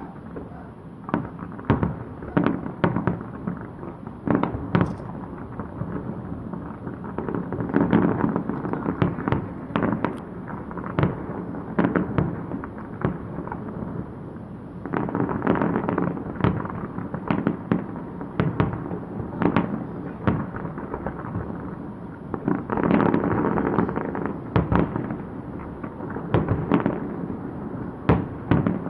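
A fireworks display: many sharp bangs of bursting shells a second or less apart over a continuous rumble, building into denser volleys several times.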